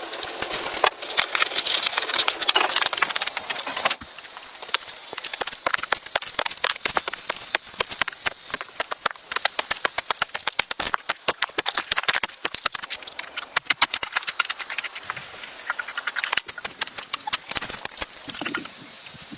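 About four seconds of rustling or scraping noise, then a long run of quick, irregular clicks and knocks.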